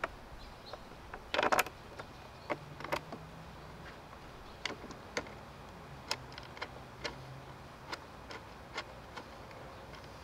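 Scattered light clicks and taps of hard plastic and metal parts being handled while fitting the dump latch on a poly dump cart, with a louder short rattle about a second and a half in.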